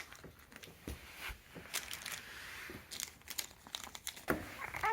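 Crinkling and rustling in short, irregular bursts. A call with falling pitch begins right at the end.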